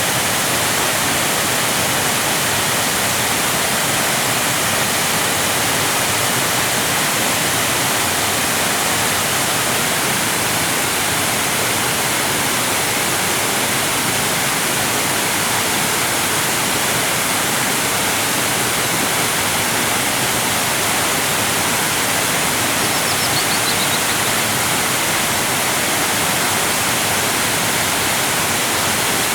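Waterfall: water pouring and crashing in a steady, unbroken rush. A faint brief chirp about three-quarters of the way in.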